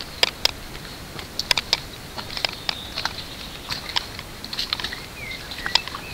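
Footsteps crunching and knocking on loose stones of a dry rocky streambed, in irregular sharp clicks. Faint short bird chirps can be heard behind them.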